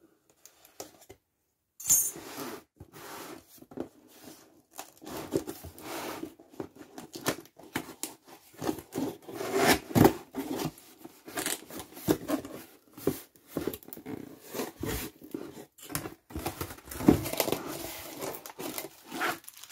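Cardboard box being opened by hand: a sudden sharp sound about two seconds in, then irregular scraping, rubbing and knocking of the cardboard as the lid and flaps are worked open.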